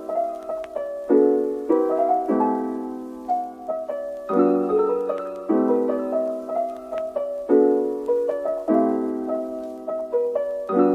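Background piano music: slow, gentle chords, each struck and left to die away.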